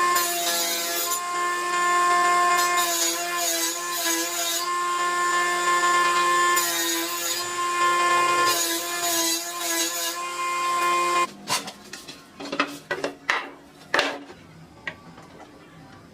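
Woodworking tool noise on wood: rasping, sanding-like strokes in long spells over steady whining tones. About eleven seconds in it cuts off abruptly, and a few sharp knocks and taps follow.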